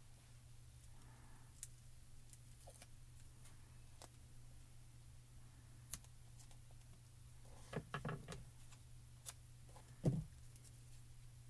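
Quiet handling of small adhesive foam pieces and card on a desk as they are peeled and pressed into place: scattered light clicks and taps, a short cluster of knocks about eight seconds in and one louder knock about ten seconds in, over a faint steady low hum.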